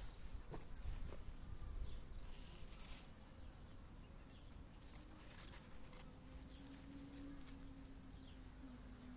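Quiet garden ambience: light crunching of dry straw mulch underfoot at first, then a quick run of about nine high chirps between two and three seconds in. A low steady hum starts about six seconds in.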